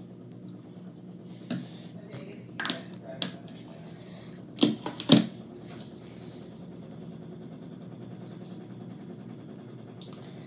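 Plastic bottle of facial cleanser being handled: a few sharp clicks and knocks in the first five seconds, the loudest pair about five seconds in, over a steady low hum.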